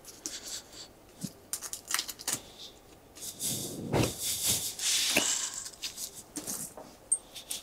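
Raw turkey being jointed by hand: a knife working through the skin and the wing joint, with irregular small clicks and rustling of the carcass being handled, a little louder about four to five seconds in.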